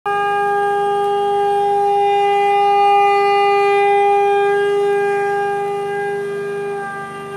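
Conch shell (shankh) blown in one long held note that starts abruptly and dips slightly in pitch near the end.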